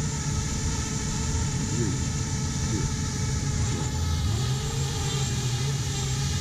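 Several FPV racing quadcopters' brushless motors spinning at idle on their launch pads, armed before a heat. They make a steady, multi-toned whine, broken by a few short throttle blips that rise and fall in pitch.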